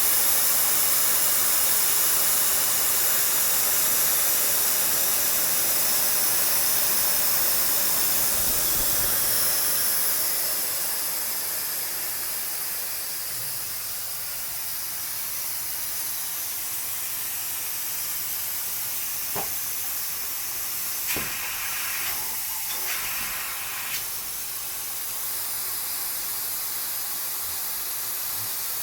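CNC machine cutting a Ford 6.4L diesel piston, a steady spraying hiss. It drops somewhat in level about a third of the way in, with a few short clicks about two-thirds of the way through.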